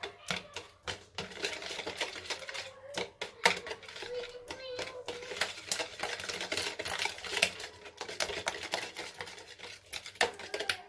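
Hand whisk beating a runny batter of eggs, sugar and oil with candied fruit in a plastic bowl: fast, uneven clicking and tapping of the whisk against the bowl, with the wet slosh of the mixture.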